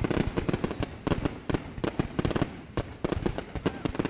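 Aerial fireworks bursting overhead in a rapid, irregular barrage of sharp bangs and crackles, many a second.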